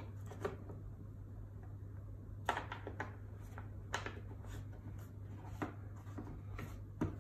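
Short plastic clicks and taps, about seven spread irregularly, as small tool bits and a screwdriver are handled and pressed into the moulded plastic holders of a Bosch tool-kit case.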